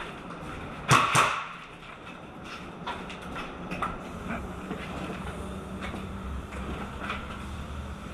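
Two sharp airsoft rifle shots about a second in, a quarter-second apart, followed by a few lighter clicks and knocks of gear and footsteps.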